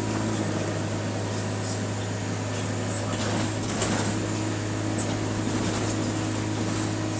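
Bus engine idling steadily, a level low hum, with a few faint clicks around the middle.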